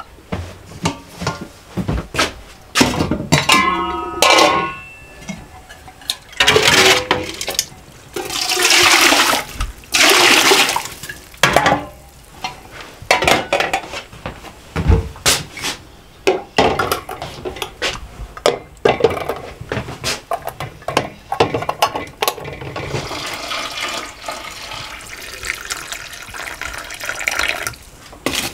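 Liquid poured into glass jars in several rushes of a second or two, among clinks and knocks of glass jars and lids.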